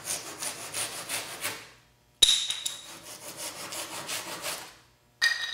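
Thin-bladed handsaw cutting wooden shims flush with the edge of a planer sled, with rapid saw strokes in three runs separated by short breaks.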